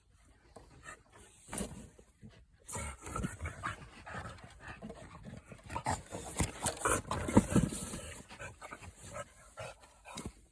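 Exotic bully puppy panting in quick, irregular breaths, starting up after a couple of seconds and easing off near the end.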